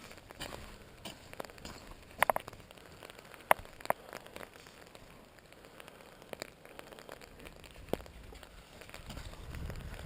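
Rain falling on an umbrella: a faint steady hiss with scattered sharp taps, a few of them louder, about two, three and a half, four and eight seconds in.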